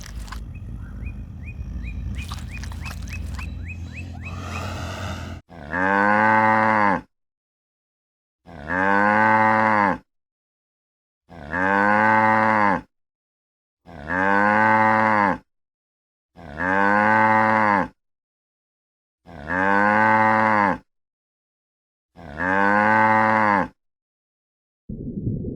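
A cow mooing: the same low, drawn-out moo that rises and falls in pitch, repeated seven times with silent gaps between, like one call looped. Low rumbling noise with a short run of quick ticks comes before the first moo.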